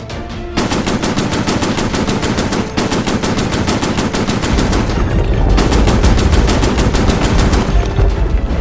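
Rapid automatic gunfire, a machine-gun sound effect firing about eight shots a second in long bursts, with two short breaks and a deeper rumble under the second half.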